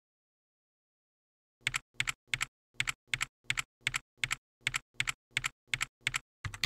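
Computer keyboard keystrokes typing out a command. About thirteen evenly spaced keystrokes, roughly three a second, each a quick double click, starting about a second and a half in.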